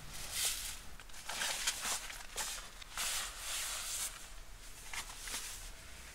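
Short bursts of rustling, three or four in a row, with a few light clicks between them: handling noise.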